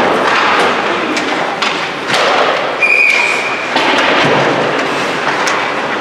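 Ice hockey practice: skates scraping on the ice, with sharp knocks of pucks and sticks against the boards spread through it. A short, steady whistle blast comes about three seconds in.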